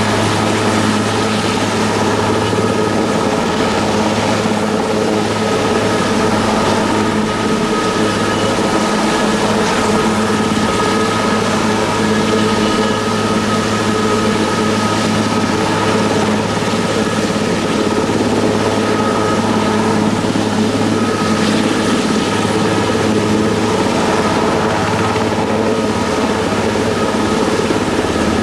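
Aerospatiale AS332L1 Super Puma helicopter hovering low, its twin turboshaft engines and rotors running steadily: an even drone with a constant whine on top.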